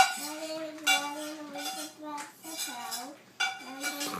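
Dishes and cutlery clinking and clattering several times, with sharp ringing strikes at the start, about a second in and near the end. Under them a child's high voice holds long sung notes.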